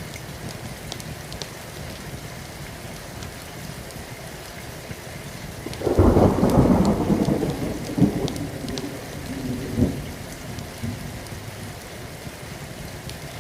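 Steady rain falling, with a sudden loud thunderclap about six seconds in that rolls on for several seconds, with two more cracks, before fading back into the rain.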